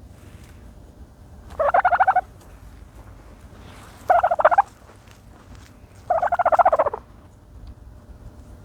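Turkey gobbling three times, each gobble a rapid rattling call lasting under a second, a couple of seconds apart.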